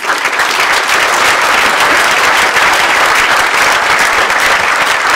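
Audience applauding, many hands clapping, coming in at full strength at once and holding steady.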